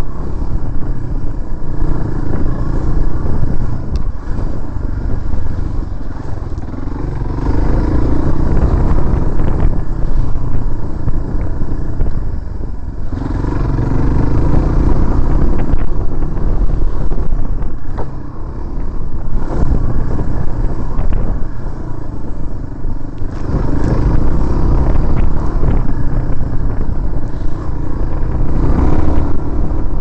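Dual-sport motorcycle engine running under varying throttle on a rough dirt trail, swelling louder several times as the rider opens it up and easing off between, with rumble from the bike and wind on the microphone.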